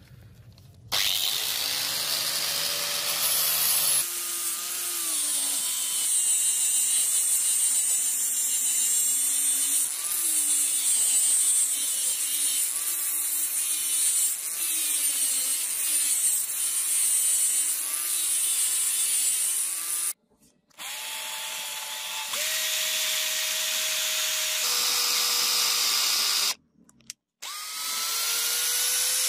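An angle grinder with an abrasive disc grinding rust off a steel sword blade, its motor pitch wavering under load across several cuts. Near the end an electric drill spins up and bores into a block of wood.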